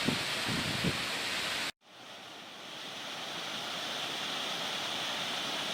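Steady rushing roar of a glacier-fed mountain waterfall. It drops out abruptly under two seconds in, then fades back up and holds steady.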